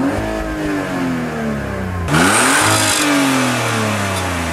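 Car engine revved twice: the first rev falls away early on, then a quick sharp rev about two seconds in climbs and slowly settles back down.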